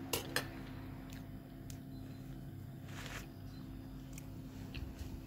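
Quiet room tone with a steady low hum, two light clicks in quick succession right at the start, and a short soft rustle about three seconds in.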